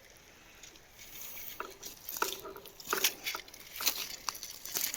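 Footsteps on a rocky riverbed, stones clacking and crunching underfoot in irregular knocks, some with a brief ring.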